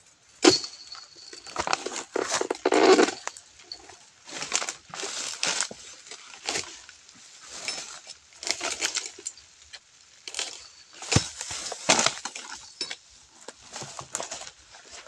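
A long-handled oil palm harvesting chisel jabbing repeatedly into the fibrous stalk of a palm fruit bunch, cutting through it. The blows come as sudden crunching strikes at irregular intervals, roughly one a second.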